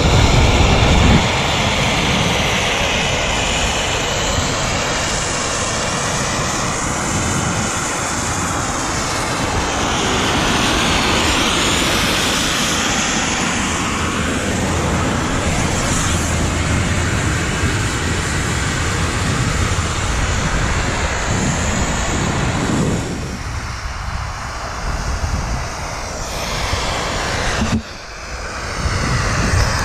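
Wind rushing over an action camera's microphone, a loud steady noise that eases somewhat in the last few seconds.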